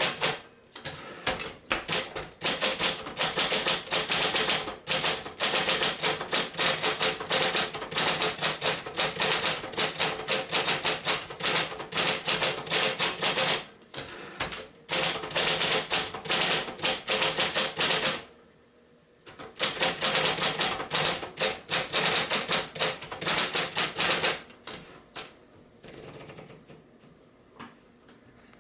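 1971 Royal Apollo 10 electric portable typewriter typing in fast runs of key strikes over the steady hum of its motor. There are two brief pauses. The strikes thin out to a few scattered ones near the end.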